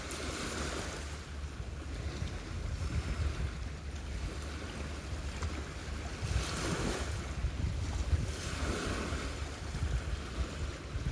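Wind buffeting the microphone with a steady low rumble, and swells of rushing noise that rise and fall twice in the second half.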